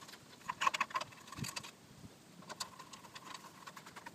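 Light clicks and rattles of an air filter housing being handled and seated on a Briggs and Stratton lawn mower engine, with a screwdriver set into its mounting screw. The clicks come in two short clusters, about half a second in and again about two and a half seconds in.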